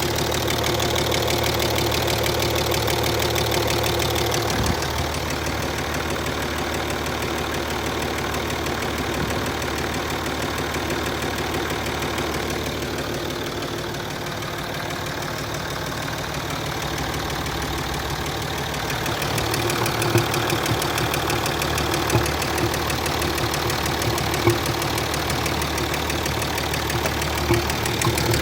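Land Rover Discovery 3's 2.7 TDV6 V6 turbodiesel idling hot with a knocking noise that only appears once the engine is warm. The sound shifts about a third of the way in, and in the last third it grows louder, with sharp knocks every couple of seconds.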